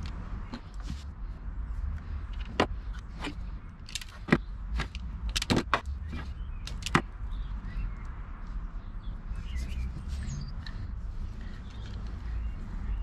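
Sharp clicks and taps of a plastic mains plug and its parts being handled while wires are fitted to it, most of them between about two and a half and seven seconds in, over a low steady rumble.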